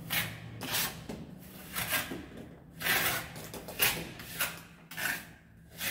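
Mason's trowel scraping and packing mortar around an electrical box set in a wall, in a series of rough scrapes about a second apart.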